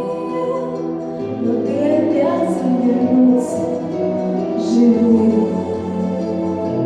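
Teenage girl singing over instrumental backing music, holding long notes.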